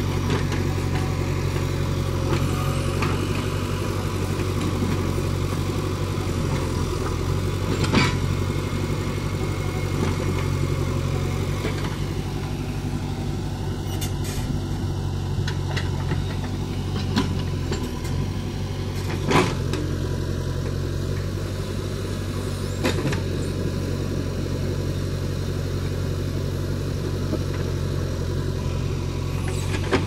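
JCB 3DX backhoe loader's diesel engine running steadily while the backhoe arm digs and swings soil, with a few sharp knocks from the working digger.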